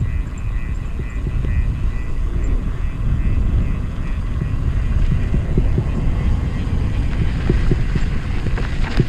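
Wind buffeting the camera's microphone, with tyre rumble as a mountain bike coasts fast downhill on pavement. A few sharp knocks come near the end as the bike rolls onto the rougher dirt trail.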